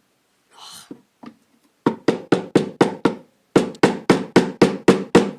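Rapid hammer blows on a Dahlton speaker enclosure, about four or five a second in two runs with a short break between them. Each knock rings briefly.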